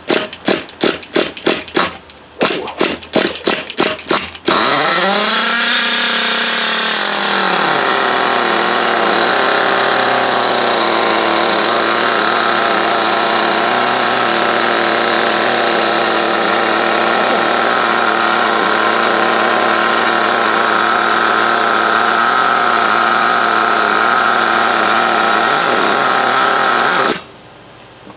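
Nitro RC car glow engine on its first start-up: a rapid run of cranking pulses, then it catches about four seconds in. It swells up in pitch and settles, runs steadily and loud, and cuts off suddenly near the end.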